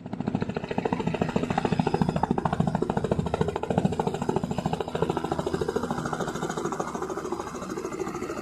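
Helicopter running, with a fast, even rhythmic pulsing that keeps up steadily and eases slightly toward the end.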